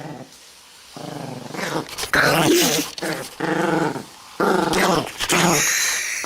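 A dog growling in a string of drawn-out, wavering grumbles, about half a dozen in a row, starting about a second in.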